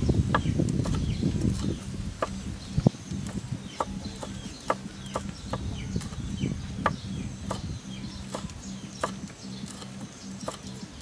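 Cleaver chopping spring onions and chillies on a wooden cutting board: a run of sharp knocks, roughly two a second and unevenly spaced, with one heavier knock near three seconds in.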